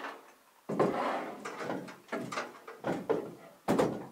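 Clunks and scraping of a battery management system (BMS) module being set and slid into place on top of a battery stack inside a metal battery enclosure: a series of sudden knocks, one of the sharpest near the end.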